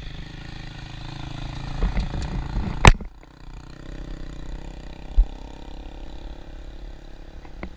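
Engine and road rumble of a vehicle driving on a rough dirt road, with a motorcycle running close alongside. About three seconds in there is a sharp knock, after which the rumble is quieter, and about five seconds in there is a dull thump.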